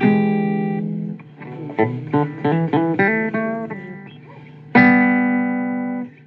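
Blues guitar playing. A struck chord rings out, then comes a quick run of single plucked notes, and a final chord about five seconds in rings for over a second before stopping suddenly.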